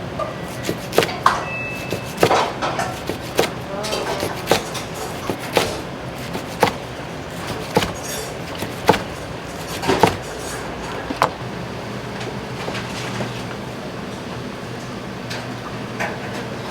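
A series of sharp knocks at an even pace, about one a second, over a steady low hum; the knocks stop a little over two-thirds of the way through, leaving the hum.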